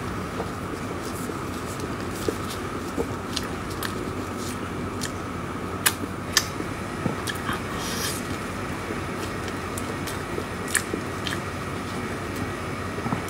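Close-miked chewing and wet mouth sounds of someone eating soft cream-filled desserts: scattered lip smacks and small squishy clicks over a steady faint hum.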